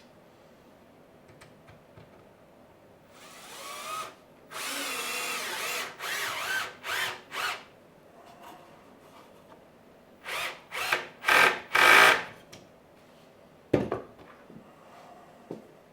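Power drill driving screws into wood: the motor winds up and runs for a couple of seconds, then a few short trigger bursts, and a second series of short, louder bursts as screws are seated. A single knock follows near the end.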